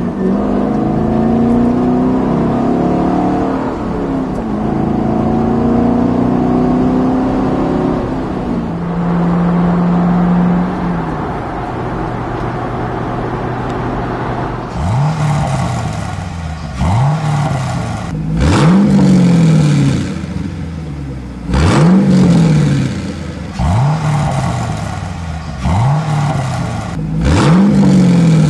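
2011 Camaro SS convertible's 6.2-litre V8 running through a Solo Performance axle-back exhaust with J-pipes, heard from inside the cabin with the top up. At first the car is driving, its pitch rising and falling with the throttle, then it cruises steadily with no drone. Through the second half come about eight quick revs, each a sharp rise in pitch and a slower fall.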